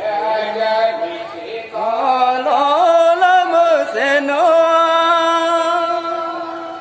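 A voice singing a chant-like melody in long, held notes that slide from one pitch to the next.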